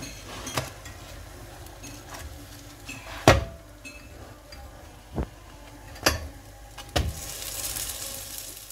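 Msemen flatbread frying on a metal griddle with a faint sizzle, while a utensil knocks sharply against the griddle about five times as the breads are turned, the loudest knock about a third of the way in.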